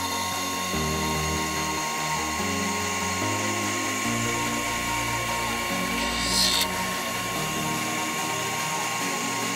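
Sherline 4400 lathe running with a steady whine and hiss as it turns an aluminium bar under power feed, with a short brighter hiss about six seconds in. Background music with changing chords plays underneath.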